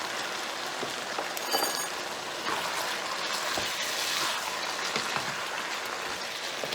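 Chicken and vegetables sizzling steadily in a hot frying pan as the stir-fry sauce is poured in. There is a brief metallic clink about one and a half seconds in.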